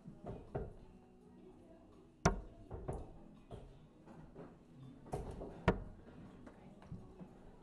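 Two steel-tip darts striking a Winmau Blade 6 bristle dartboard: a sharp thock at each landing, about three and a half seconds apart.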